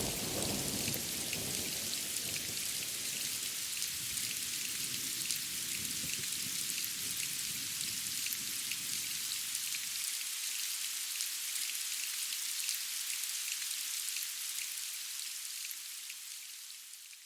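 Steady rain with fine drop ticks, over the low rumble of thunder dying away, which cuts off abruptly about ten seconds in. The rain then fades out near the end.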